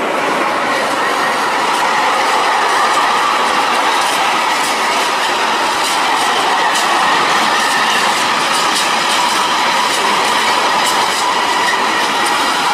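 Freight train of covered steel-coil wagons rolling past steadily, wheels clicking over rail joints, with a steady high squeal from the wheels.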